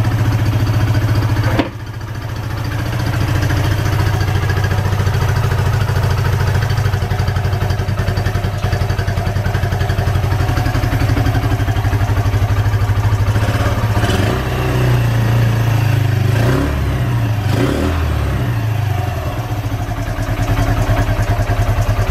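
Suzuki GN125's single-cylinder four-stroke engine running, freshly started after a carburettor rebuild. About a second and a half in there is a sharp click and the engine note dips briefly. The throttle is then blipped, and the engine revs up and down a few times past the middle.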